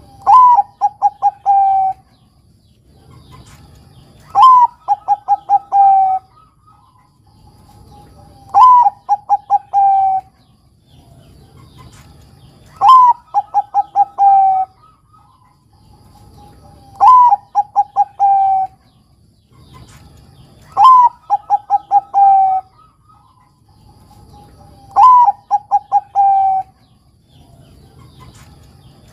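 Bangkok-strain zebra dove (perkutut) cooing its song over and over, about every four seconds, seven times. Each phrase opens with a soft lead note and a louder rising-then-falling coo, then a quick run of about five short coos that drop slightly in pitch.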